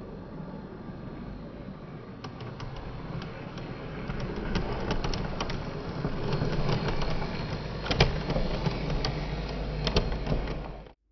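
Heljan OO gauge model Class 128 parcels unit running along the track: a steady motor and wheel hum that grows louder as it comes closer, with rapid clicks from the wheels crossing rail joints and points, two sharper clicks near the end. The sound cuts off abruptly just before the end.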